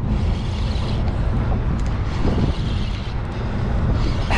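Yamaha 15 hp outboard motor running with a steady low rumble under wind and water noise.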